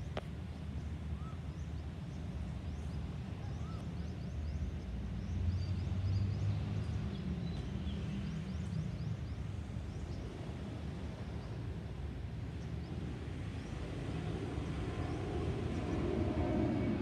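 Airbus A321-231 jet with IAE V2500 turbofans flying over, a steady low rumble that swells twice and grows fuller near the end, with a faint steady engine whine coming in. A few faint bird chirps sound over it.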